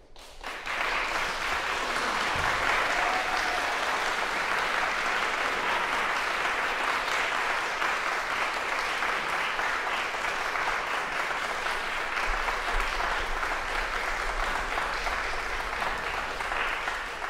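Audience applauding, starting about half a second in, holding steady and thinning out near the end.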